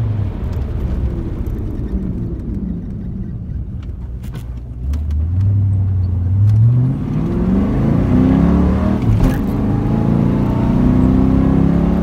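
Fox-body Ford Mustang GT's 5.0 V8, heard from inside the cabin: the engine note falls as the car slows for a normal stop, then climbs as it accelerates away from about five seconds in, and runs at a steady higher pitch near the end.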